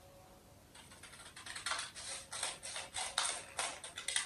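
Scissors snipping through a paper sewing pattern: a run of short cuts starting about a second in.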